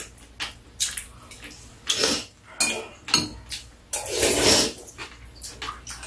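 Metal spoons and chopsticks clinking and scraping against ceramic bowls during a meal of kimchi stew, with wet eating noises; the loudest is a slurp of the stew lasting most of a second, about four seconds in.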